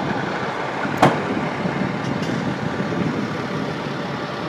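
Steady engine and street noise from a dump truck running at the kerb, with one sharp bang about a second in.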